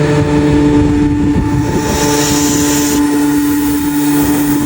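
A compressor running with a steady, loud hum on one even pitch, just started up after its control circuit was repaired and running normally. A brighter hiss joins in for about a second near the middle.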